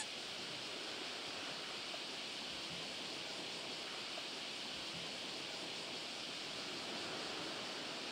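Steady hiss of the sea washing against the shore, even throughout with no distinct knocks or calls.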